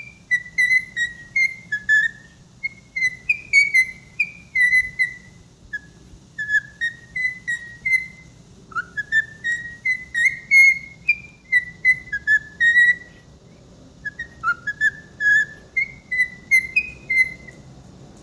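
Pet bird whistling runs of short, high beeping notes, the warm-up with which it usually starts singing. A couple of the notes swoop up from lower into the beep, about halfway through and again later on.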